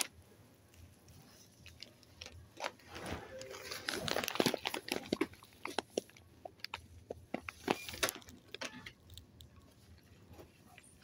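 Scattered light clicks, taps and rustles of close handling, irregular and uneven, busiest in the middle.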